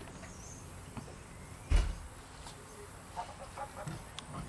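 Faint, short farm-animal calls, scattered from about three seconds in, with a single loud low thump a little under two seconds in.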